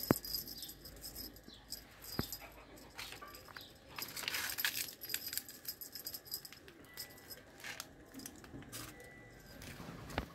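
Rustling and small clicks from cats playing with a feather wand toy, with a few sharp knocks: one just after the start, one about two seconds in and one near the end. The rustling is loudest about four seconds in.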